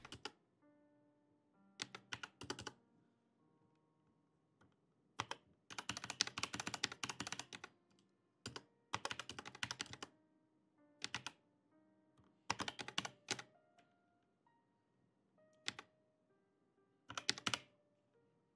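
Computer keyboard typing in several short runs of keystrokes with pauses between them, as values are entered into fields. Faint background music with sustained notes underneath.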